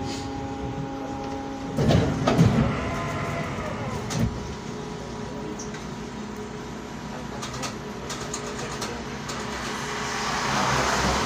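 A tram standing at a stop, heard from on board: a steady electrical hum stops about two seconds in with a cluster of loud knocks, then scattered clicks, and a broad rush of noise that swells near the end.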